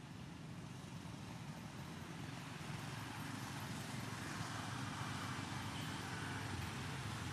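Steady outdoor background noise: a low rumble with a hiss over it, growing a little louder about three seconds in, with no distinct calls or knocks.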